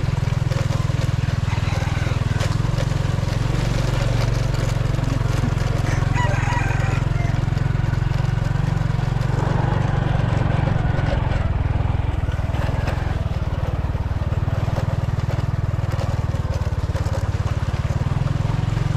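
A small motorcycle engine running steadily while riding over a rough dirt track, with scattered knocks and rattles from the bumps.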